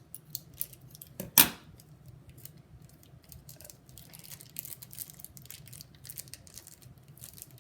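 Small toy packaging being handled and opened: scattered clicks and rustles, with one loud knock about a second and a half in.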